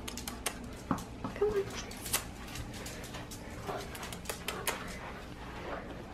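Small dog with a tennis ball in its mouth moving on a tiled floor: scattered sharp clicks and taps, with a short whine about one and a half seconds in.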